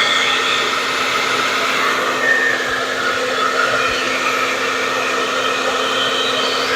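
Hand-held blow dryer running steadily, with a constant airy rush over a low steady hum, used to blow poured acrylic paint across a tile in a Dutch pour.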